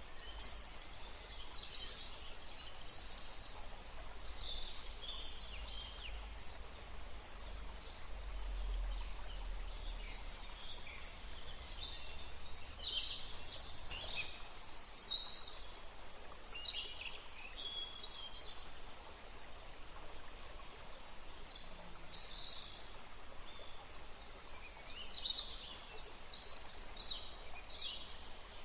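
Birds chirping: many short, high chirps and trills in scattered clusters throughout, over a steady faint hiss, with a low rumble in the first half.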